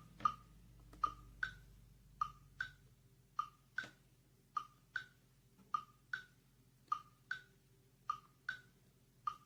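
Donner rechargeable digital metronome clicking out a beat: short electronic clicks in pairs about 0.4 s apart, a pair every 1.2 s or so, the second click of each pair slightly higher in pitch.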